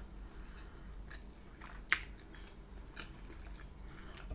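Quiet, close-up chewing of a mouthful of food, with small wet mouth ticks and one sharp click about two seconds in.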